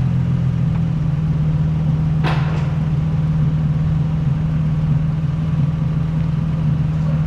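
Nissan 350Z's V6 engine running steadily with an even low hum, with one brief scuff about two seconds in.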